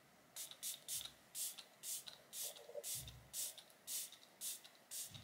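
Idun face mist and makeup-setting spray being pumped repeatedly onto the face: about a dozen short hissing puffs of fine mist, roughly two a second.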